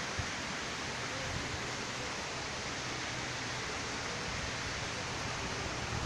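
A steady, even rushing noise with no distinct events in it.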